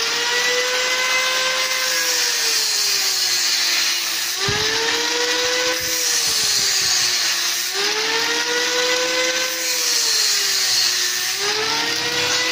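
Angle grinder with an abrasive cut-off disc cutting through a metal square tube: a steady high motor whine over the hiss of the cut, its pitch sagging and picking back up three times as the disc works through the metal.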